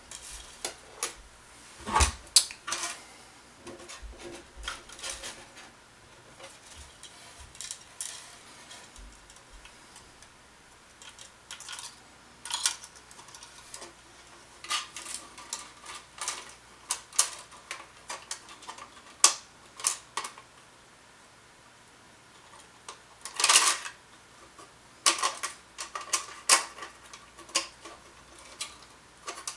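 Irregular clicks, taps and light clatter of plastic monitor housing parts and small hardware being handled and fitted back together on a bench, with louder knocks about two seconds in and a longer clatter near the end.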